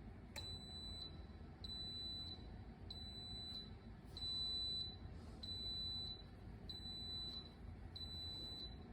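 Electronic beeper of a smart electric kettle sounding a click, then a steady series of seven high beeps, each lasting under a second and coming a little more than once a second.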